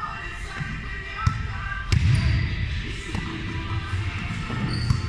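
A volleyball striking and bouncing on a hardwood gym floor, two sharp impacts about a second and two seconds in, echoing in a large hall.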